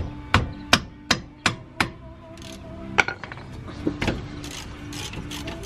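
Sharp metallic knocks from hand-tool work on a car's rear disc-brake caliper bracket: six strikes at about three a second, then a few more spaced out.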